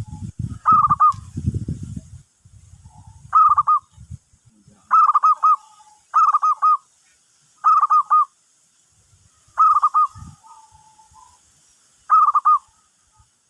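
Zebra dove (perkutut) cooing: seven short, trilled coo phrases repeated about every second and a half, with a few lower, steadier notes between them. A low rumbling noise runs under the first two calls.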